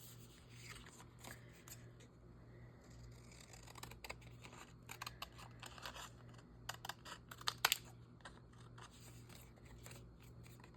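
Paper being cut and handled for a small tag and journal card: quiet scattered snips and rustles, with a few sharper clicks about seven seconds in, over a steady low hum.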